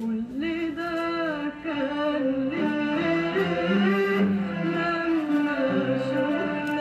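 Arabic song: a voice singing long held notes that slide between pitches, over bowed-string accompaniment.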